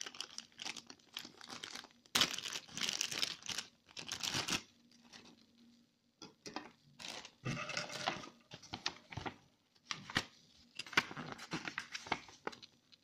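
Thin clear plastic packaging bag crinkling and rustling in irregular bursts as it is handled and pulled off, with short pauses between handfuls.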